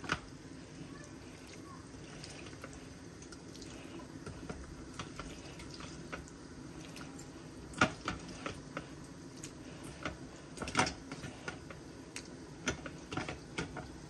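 Raw chicken pieces dropped into a steel pot of curry broth and vegetables: scattered wet plops and light knocks, the loudest about eight and eleven seconds in, over a low steady hum.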